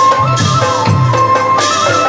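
Assamese dihanam devotional music: a high held melodic line that steps in pitch, over large brass hand cymbals clashing to a steady beat, with low drum-like thumps.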